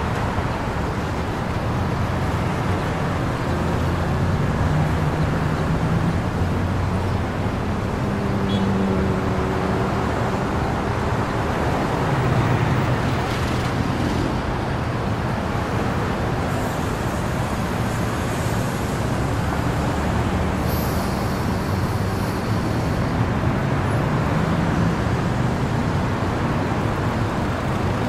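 Downtown city street ambience: a steady wash of traffic, with car and bus engines swelling and fading as they pass. A brief high hiss comes a little past the middle.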